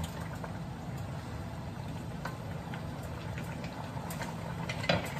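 Chicken afritada simmering in a steel wok, sauce bubbling and sizzling, with a wooden spatula knocking against the pan a few times as it is stirred, over a steady low hum.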